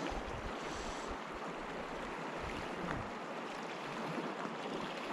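River water rushing steadily over a riffle, an even wash of noise.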